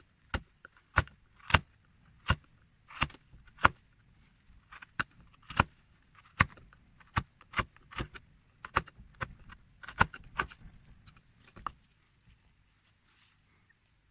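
Hand carving tool making a series of sharp, irregular cuts into a small carving, about one or two a second, ending about twelve seconds in.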